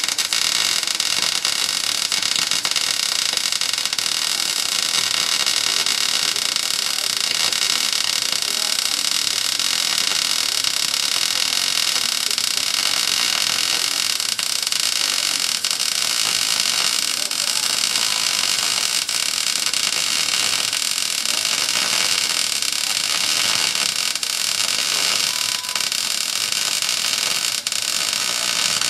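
Wire-feed (MIG-style) welder laying a continuous bead on a steel axle tube, a steady crackling hiss of the arc that runs without a break.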